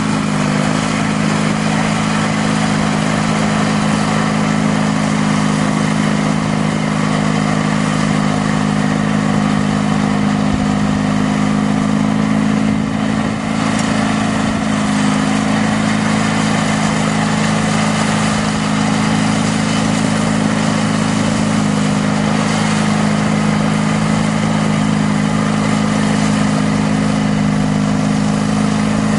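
Sears GT18 garden tractor's 18 hp Briggs & Stratton horizontal twin-cylinder engine running steadily under load, driving its shaft-driven 42-inch front snowblower as it blows snow.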